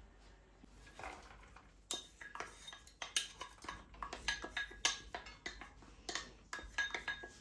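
Kitchen utensils clinking and knocking against dishes: a dense run of quick clicks and taps, some with a short ring, starting about a second in.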